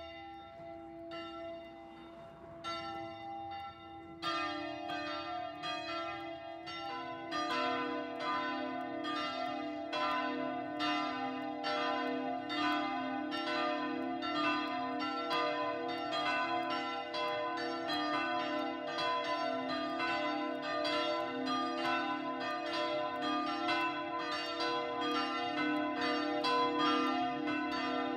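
Church bells ringing, several bells struck in turn with their tones overlapping and ringing on. At first only a few strokes sound, then more bells join about 4 s in and again about 7 s in, filling out into a full peal.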